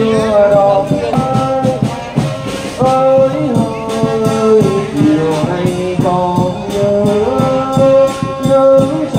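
Funeral band music: brass instruments play a slow melody over a steady drum beat.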